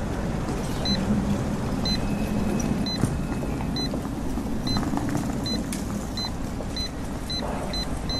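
Electronic countdown beeps like a bomb timer: short high beeps about once a second, starting about a second in and coming faster and faster toward the end, over steady street-traffic noise.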